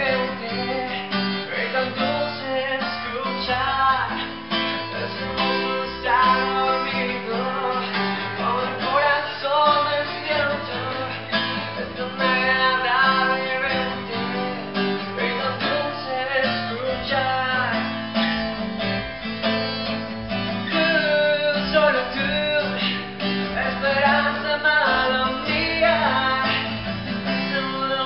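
Acoustic guitar played live, a steady flowing melody of plucked and strummed notes.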